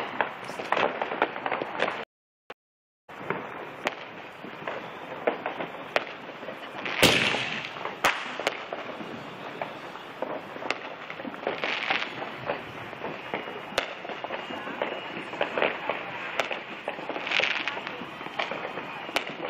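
Neighbourhood fireworks and firecrackers going off in a dense, continuous run of cracks and pops, with a louder bang and a hiss about seven seconds in. The sound cuts out completely for about a second near the start.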